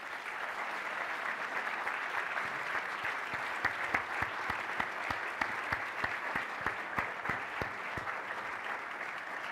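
An audience applauding steadily. Sharper single claps from one person close by stand out through the middle.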